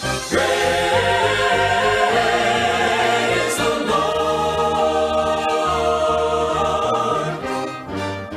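Gospel vocal group singing long held chords over instrumental backing, with a change of chord about halfway through.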